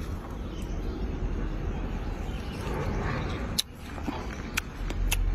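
Steady low outdoor rumble. The level drops suddenly about three and a half seconds in, followed by a few sharp clicks in the last second and a half.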